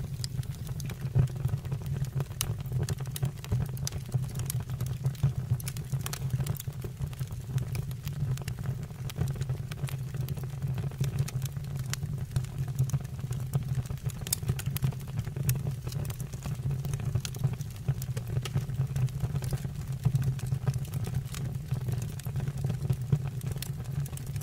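Fireplace fire burning: a steady low rumble with frequent irregular crackles and pops.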